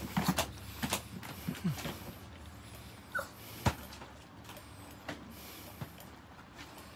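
Chihuahua jumping and scrabbling against a wire pet pen: its claws click and rattle the metal bars in a quick run of knocks over the first two seconds. Then it goes quieter, with a brief high squeak about three seconds in and a single sharp click just after.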